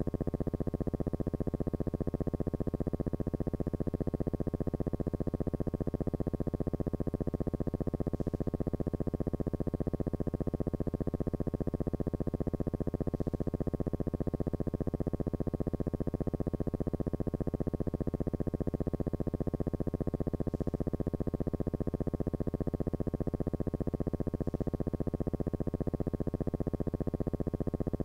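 Background synthesizer music: a sustained electronic drone held on one chord, with a fast, even pulsing and no change in level.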